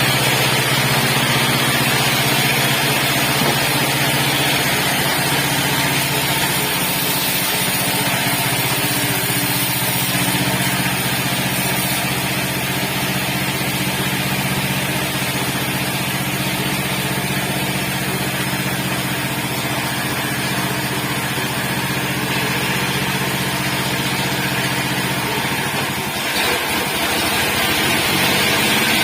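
The 9-horsepower engine of a horizontal bandsaw sawmill running steadily on test. About 26 seconds in its sound dips briefly and its pitch shifts before it runs on.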